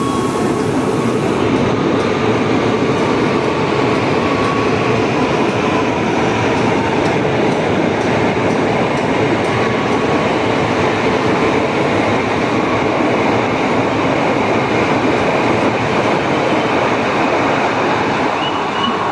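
A 12-car electric commuter train departing, its cars and wheels running over the rails in a loud, steady noise.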